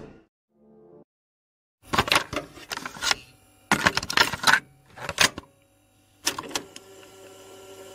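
Several quick bursts of sharp clicking and clattering, about four groups, starting about two seconds in after a near-silent pause. A faint steady hum follows near the end.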